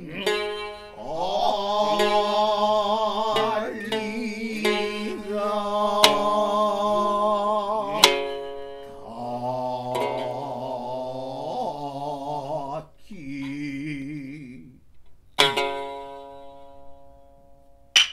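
Gidayū chanting by bunraku tayū: male voices in long, wavering, held notes, with a few sharp, ringing shamisen plucks, two midway and two near the end.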